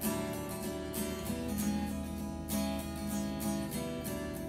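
Background music of a strummed acoustic guitar with a steady rhythm.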